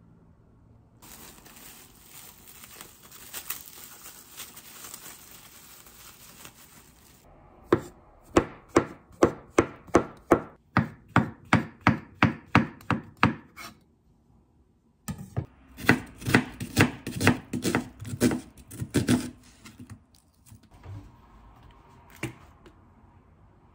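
Chef's knife slicing mushrooms on a wooden cutting board: a run of steady knife taps about three a second, then after a short pause a louder, faster run of about four a second.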